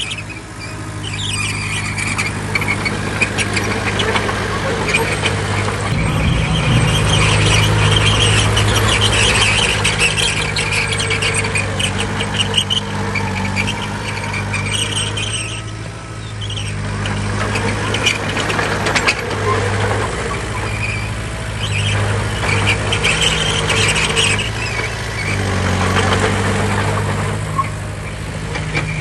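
Bulldozer working: its diesel engine runs steadily and grows louder about six seconds in, over a high squealing and rapid clanking from the steel crawler tracks.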